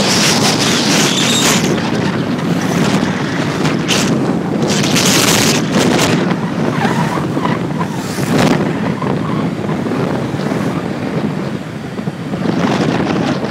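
Wind buffeting the microphone of a camera carried on a moving scooter, a steady loud rush that swells in gusts.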